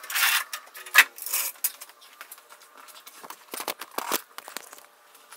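Floor jack being let down under a heavy cast-iron bandsaw frame. A short rushing noise, then a sharp metal clank about a second in, followed by scattered knocks and scrapes as the frame and jack shift on the concrete floor.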